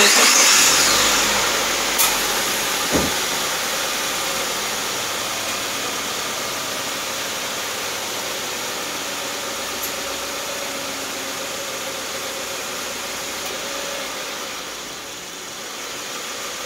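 Subaru Forester flat-four engine starting and running at idle, loudest as it catches and slowly easing down, as it warms up for a hot check of the automatic transmission fluid. Two sharp clicks about two and three seconds in.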